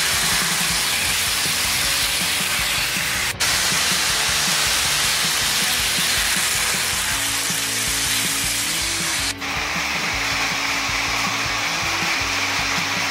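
Broadway Limited HO scale Baldwin Shark Nose model diesel locomotive running fast with its freight train: a steady rushing clatter of wheels on the track and motor whir, with a low steady hum of tones beneath. The sound breaks off for an instant twice.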